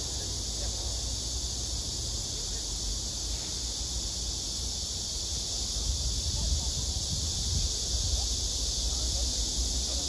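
A chorus of cicadas keeping up a steady, unbroken high hiss. Low wind rumble on the microphone grows from about halfway through.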